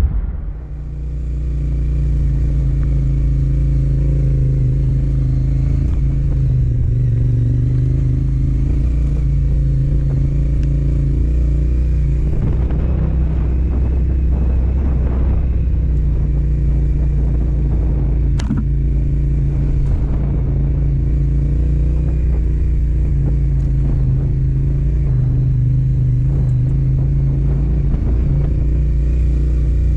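Yamaha Ténéré 700's parallel-twin engine running at steady, moderate revs, its pitch rising and falling a little as the bike rides off-road. Clattering and knocks come through between about 12 and 20 seconds in, with one sharp click near 18 seconds.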